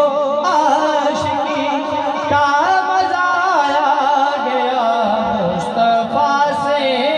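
A man singing a devotional naat into a microphone through an amplified sound system, drawing out long, wavering, ornamented notes.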